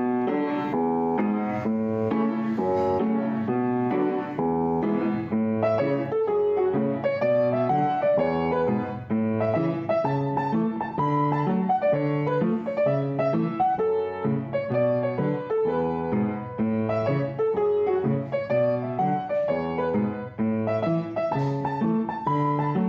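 Background music led by piano, a steady flowing pattern of held notes.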